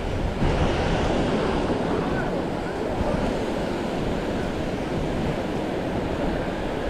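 Ocean surf washing onto a beach: a steady rush of breaking waves that swells about half a second in.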